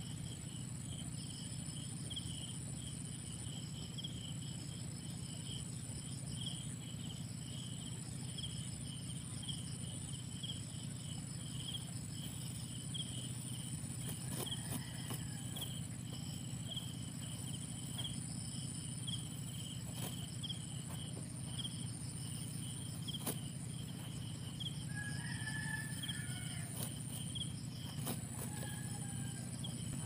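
Insects chirping in a steady, even rhythm over a constant high-pitched insect drone, with a few short bird calls in the last third and scattered faint clicks.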